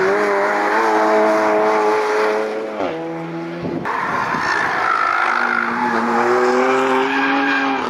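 Car engines on a race circuit: a hatchback's engine pulls hard through a corner, its pitch climbing, then drops off about three seconds in. After a break, a second car's engine note rises steadily as it accelerates out of the bend.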